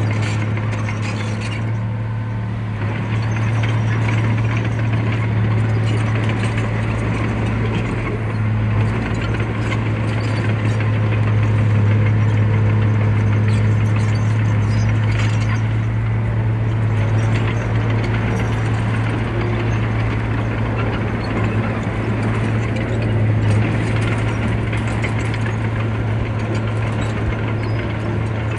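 Heavy diesel earthmoving machine running steadily under load: a constant low engine drone with metallic clattering over it.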